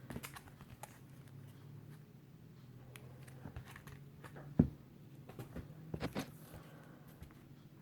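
Bagged-and-boarded comic books being handled: scattered light plastic crinkles and taps, with one sharp knock a little past halfway, over a steady low hum.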